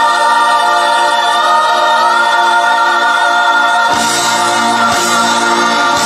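Gospel-style choral music with long held chords; a fuller, lower chord comes in about four seconds in.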